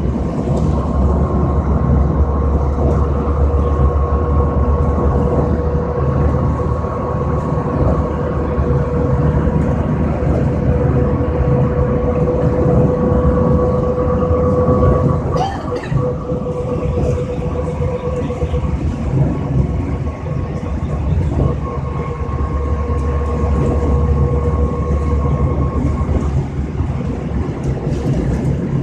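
New Flyer DE40LFR diesel-electric hybrid bus running, its drive giving a steady whine at two pitches over a low engine and road rumble. The whine breaks briefly with a clatter about halfway through, then carries on and fades out near the end.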